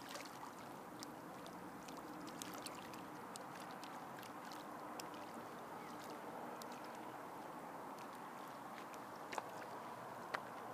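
Gentle lake water lapping against a rocky shore, a faint steady wash with scattered small clicks and a few louder ticks near the end.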